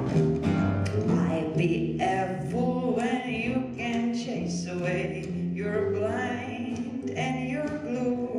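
Live band music: a voice singing over held low notes, with frequent drum hits.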